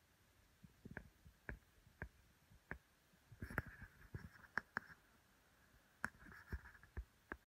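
Faint, scattered taps and clicks with two brief scuffing rustles: handling noise from a camera held against an optic's eyepiece. The sound cuts off abruptly near the end.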